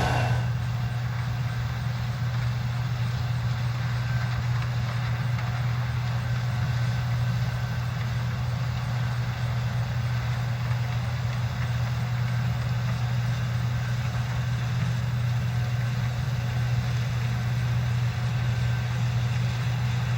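Farm machinery engine running at a steady speed, a constant low hum with no change in pitch.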